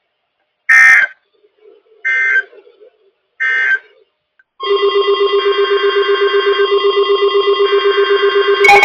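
Three short warbling data bursts of the NOAA Weather Radio SAME end-of-message code, about a second and a half apart, marking the close of a warning broadcast. About four and a half seconds in, a steady, rapidly pulsing electronic alert tone starts, and a second, louder alarm tone joins near the end.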